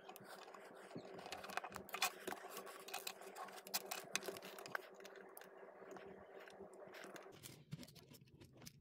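Small plastic building bricks being handled and pressed together: a run of light clicks, taps and scrapes of plastic on plastic.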